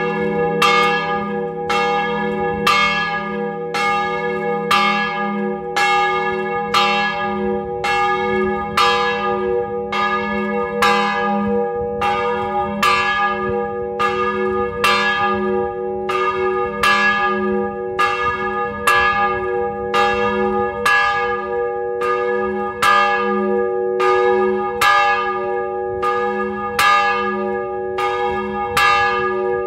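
Church bells of the 1939 Pasqualini ring, heard up close inside the belfry, struck in a steady rhythm of a little under one stroke a second. Each stroke rings on and overlaps the next, over a steady low hum.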